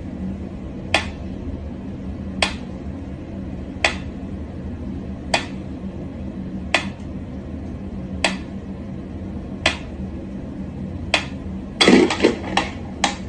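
A mechanical pendulum metronome ticking slowly, one sharp click about every second and a half, over a low steady hum. Near the end a louder clatter of knocks breaks in as a cat rears up at the metronome.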